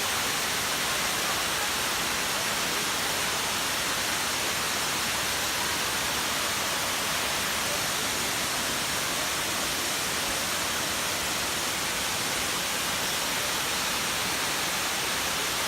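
Waterfall rushing: a steady, unbroken roar of falling water with no changes.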